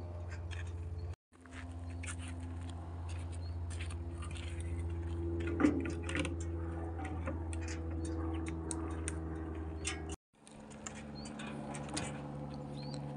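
Loncin XWolf 300 ATV engine idling steadily, with knocks of firewood logs being stacked onto its trailer, the loudest about six seconds in. The sound cuts out briefly twice.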